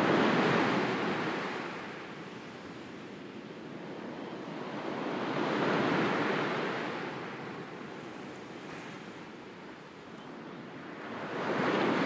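Sea waves surging and receding in slow swells, about one every six seconds.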